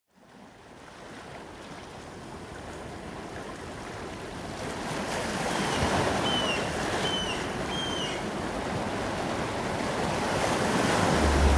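Ocean surf washing onto a beach, a steady rushing sound that fades in from silence and grows louder, with four short high chirps between about six and eight seconds in. A deep, loud low rumble starts just before the end.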